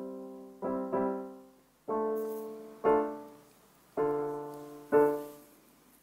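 E-mu Proteus 2500 sound module triggered over MIDI from Maschine, playing a keyboard patch: about six struck notes roughly a second apart, each fading away.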